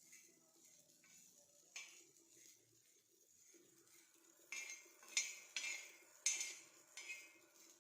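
A metal utensil clinks and scrapes against an iron tawa griddle while roasted, puffed borax is stirred on it. There is one clink about two seconds in, then five sharper clinks and scrapes in quick succession in the second half.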